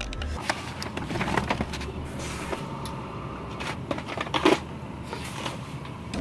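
An infant car seat and stroller being handled and set together: a run of short plastic clicks and knocks, the loudest about four and a half seconds in, over a low steady background.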